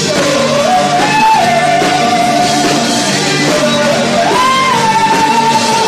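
Rock band playing loudly in a small room, with electric guitar and drums. A voice holds long wordless notes into a microphone over the band, bending up in pitch twice.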